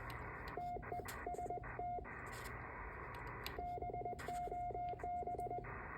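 Morse code sent as a single steady-pitched tone at 20 words per minute: two groups of dots and dashes, each about one and a half to two seconds long, with a steady hiss in the gaps between them.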